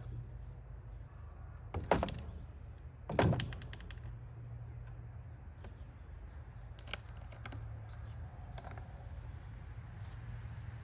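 Hands handling a chainsaw and its fuel and oil containers: two sharp knocks about two and three seconds in, then scattered light clicks, over a steady low hum.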